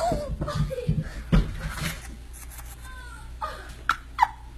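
A child falling down a staircase: a few dull thumps of the body hitting the steps in the first second and a half, the loudest about a second and a half in, amid voices and exclamations.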